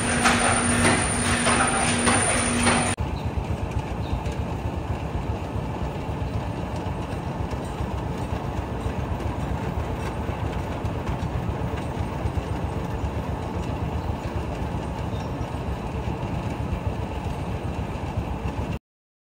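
Stacker-reclaimer and belt conveyor machinery in a limestone storage hall, running with a steady mechanical rumble. For about the first three seconds it is louder, with a steady hum. Then it drops to a quieter, even rumble, which cuts off abruptly near the end.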